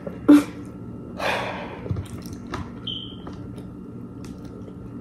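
Quiet eating sounds at a table over a low steady hum: a short sharp smack about a third of a second in, then a breathy sound, and a few faint clicks.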